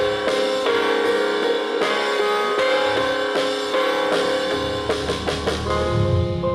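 Background music: held tones over a steady drum beat.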